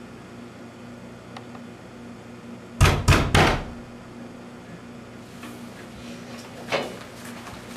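Three quick, loud knocks on a door about three seconds in, followed by a fainter single thump a few seconds later, over a low steady room hum.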